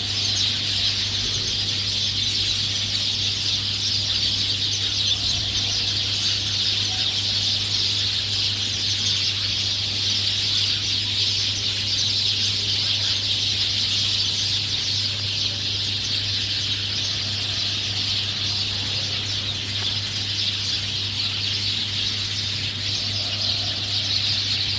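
A dense chorus of many small birds chirping, a continuous mass of high twittering that never breaks, over a steady low hum.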